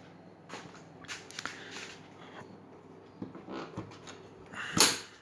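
Handling noises: a few soft knocks and rustles, then a louder knock with a brief rush of noise near the end.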